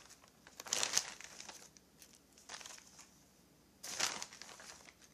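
Clear plastic bags of chainsaw screws crinkling as they are handled and spread out on the bench, in two main bursts about a second in and about four seconds in, with a smaller rustle between.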